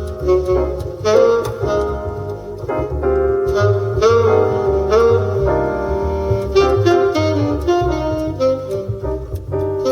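Jazz trio recording played back through a Mercedes C-Class W205's Burmester surround sound system, heard inside the cabin: a melody line over a moving bass line.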